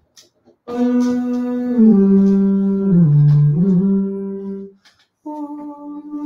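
A singer's voice into a microphone, holding long steady notes: the first steps down in pitch twice, dips and comes back up, then stops, and after a short break a second, higher held note begins.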